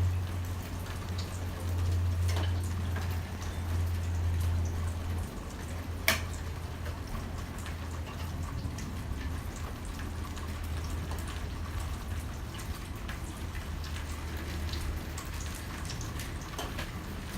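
Rain falling, a steady hiss with scattered drops tapping close by. A low hum underlies the first five seconds or so, and one sharper drop hit sounds about six seconds in.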